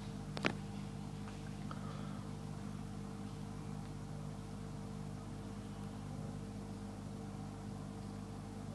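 Blomberg GVN9483E dishwasher running early in its Express 58-minute 60 °C cycle: a steady pump-motor hum, with one sharp click about half a second in.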